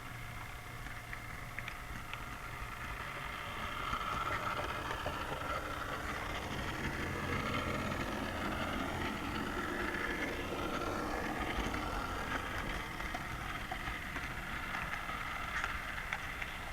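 Model train running on its layout: the locomotive's small electric motor whines with a wavering pitch over a steady low hum, and the wheels give occasional small clicks on the track.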